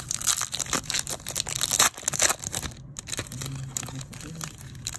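Plastic foil wrapper of a baseball card pack crinkling and tearing as it is ripped open by hand, loudest in the first two seconds or so and then softer rustling.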